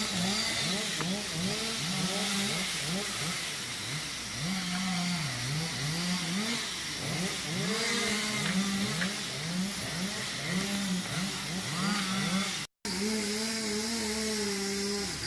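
A small engine revving up and down over and over, its pitch swooping every half second or so. It drops out for an instant near the end, then runs at a steadier pitch.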